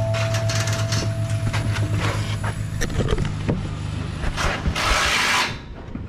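Irregular knocks and scraping of hand-tool work on a building site, with a louder rasping scrape about five seconds in.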